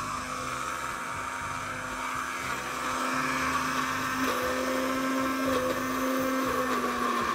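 Countertop jug blender running, crushing ice with orange, grapefruit, apple and strawberries into a smoothie. A splash of water has just gone in to help the blades catch the ice. It grows louder about three seconds in, and its motor pitch changes about a second later.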